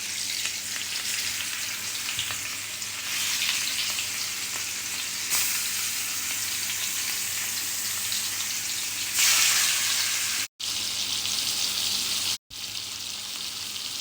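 Spice-rubbed hilsa fish pieces frying in hot oil: a steady sizzle that swells louder several times, most of all about nine seconds in. Two brief dead silences break it near the end.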